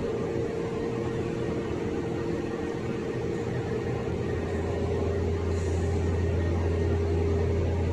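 Steady low mechanical hum of running machinery, with a faint steady higher tone over it, growing slightly louder about halfway through.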